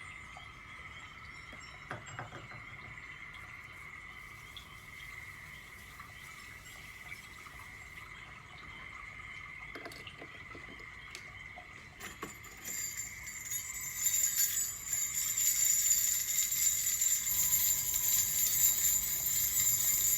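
A faint, steady high drone for the first twelve seconds or so. Then jingle bells begin to be shaken and grow louder, ringing in a continuous shimmer through the end.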